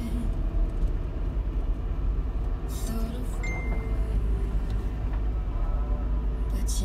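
Steady low engine and road rumble heard from inside the cabin of a moving older Mazda, with a short high beep about three and a half seconds in.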